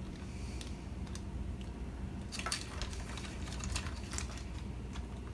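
Small plastic clicks and handling noises as a Raspberry Pi 4 case cover is fitted back on, a few sharper clicks between two and a half and four seconds in, over a steady low hum.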